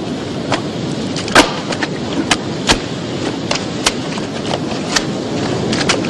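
Sharp knocks and clacks at irregular intervals, the loudest about a second and a half in, over a steady noisy background: cod being split and thrown about on the wooden deck of a cod-fishing schooner.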